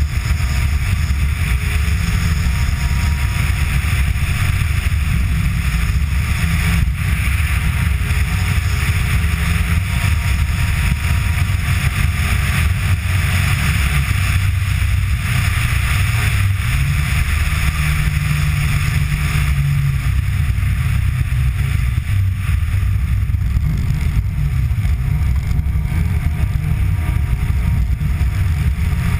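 Rally car driving at speed on a snowy track: a steady engine drone with a rushing noise over it, the engine note shifting now and then.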